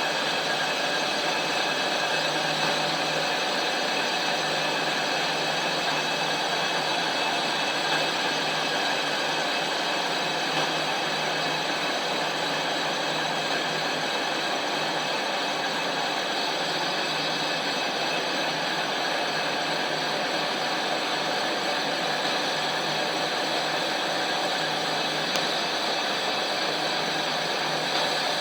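Lathe running steadily while machining a truck brake disc: an even mechanical whir and scraping with steady tones, unchanging throughout.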